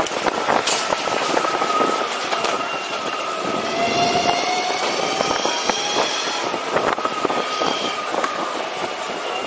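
Riding a personal electric vehicle on city streets: rough road and wheel noise with many small clicks and knocks, and steady high whines from electric motors that come and go.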